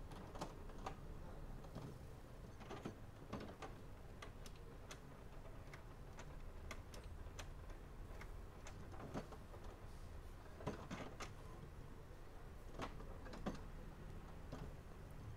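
HP Smart Tank 515 inkjet printer running a colour copy: irregular sharp mechanical clicks and ticks from its paper feed and carriage over a low hum.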